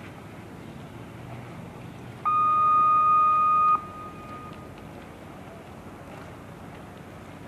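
A race-start horn sounds one steady, high-pitched blast of about a second and a half, beginning about two seconds in and cutting off sharply, over faint open-air background noise. It is a sound signal in a sailing race's starting sequence.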